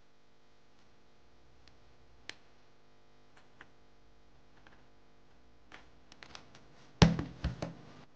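Handling noise of small parts and metal tools at a tabletop: a few faint clicks, a quick run of clicks, then a burst of loud knocks and clatter about seven seconds in. A faint steady hum runs underneath.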